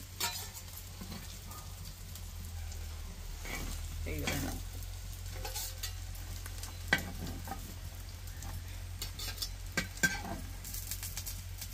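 Pumpkin-flower fritters sizzling as they shallow-fry in oil in a black frying pan. A metal spatula scrapes and clinks against the pan as they are turned and lifted out, with sharper clinks about seven and ten seconds in.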